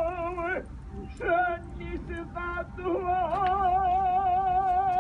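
A solo voice singing long held notes with a wide, wavering vibrato. It breaks off about half a second in for a few short gliding phrases, then settles back onto a held note about three seconds in.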